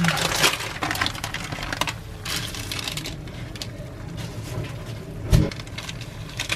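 Pot of army base stew ramyun at a rolling boil: a dense crackle and patter of popping bubbles, heaviest for the first two seconds and then thinner. A single low thump about five seconds in.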